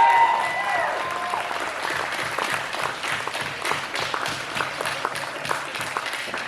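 Crowd applauding after a fencing bout is scored, with one voice holding a long call over the first second; the clapping eases off a little after that.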